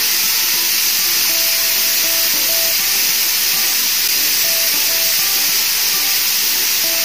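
Pressure cooker on a gas hob hissing steadily as steam escapes past the weighted valve on its lid, the sign that it is up to pressure and cooking. A light plucked-string tune plays quietly beneath the hiss.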